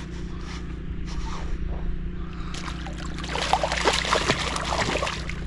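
Northern pike splashing at the surface beside a kayak as it is landed, a burst of splashes in the second half, over a steady low hum.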